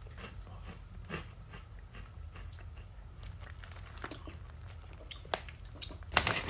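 Close-up chewing and crunching of Pringles Mingles barbecue-and-pizza puffs, a puffy but fairly dense snack, with irregular small crunches throughout. A louder burst of crackling comes near the end.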